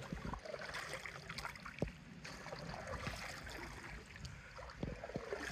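River water splashing and running around a canoe on the move, with a few light knocks.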